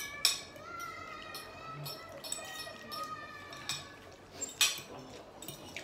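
Metal fork clinking against a plate of spaghetti several times, the loudest clink a little past halfway, with a faint wavering tone in the background.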